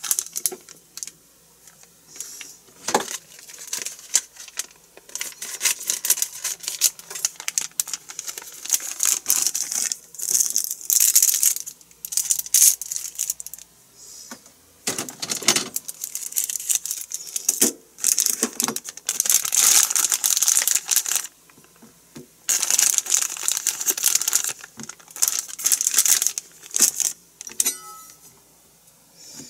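Plastic food packaging crinkling and tearing in repeated irregular bursts, with scattered clicks and knocks as it is handled and opened.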